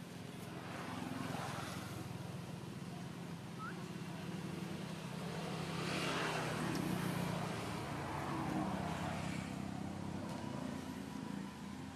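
Engine noise of passing road vehicles: a steady low hum that swells as vehicles go by, loudest about six to seven seconds in.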